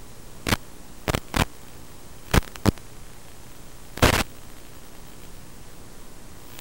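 Steady static hiss from an analog FPV video link's receiver audio, broken by about half a dozen sharp crackling pops. The loudest and longest pop comes about four seconds in.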